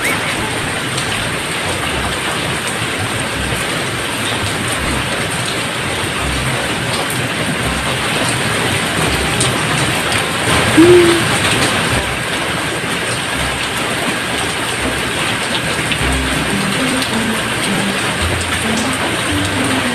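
Steady, even hiss of heavy rain falling. About halfway through, a brief low hum rises above it.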